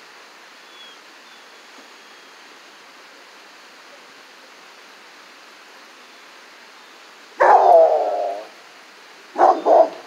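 Coonhound baying: one drawn-out call of about a second, sagging slightly in pitch, then two short barks in quick succession near the end.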